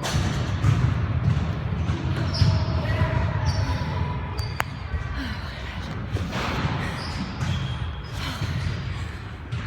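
A woman panting heavily, out of breath after sets of heavy sled pushes, over a steady low rumble.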